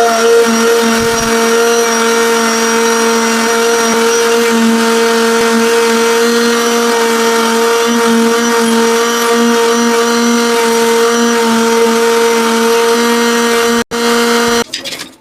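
Electric power tool motor running at a steady pitch. It drops out for an instant, then cuts off near the end.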